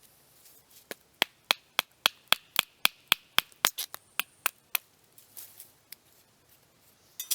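Wooden baton striking the spine of a knife to split a short piece of wood: about fifteen sharp knocks at roughly four a second, then a few softer knocks.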